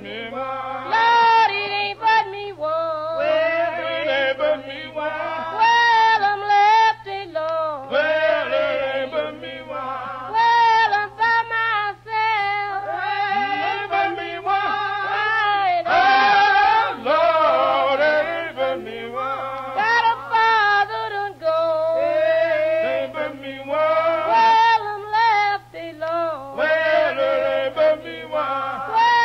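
Choral singing: several voices holding long notes with a strong wavering vibrato, without a clear beat.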